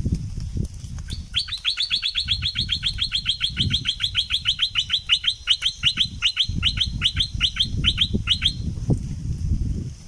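A bulbul calling a fast trill of sharp, downward-sweeping notes, about seven a second, lasting some seven seconds, with a low rumbling noise underneath.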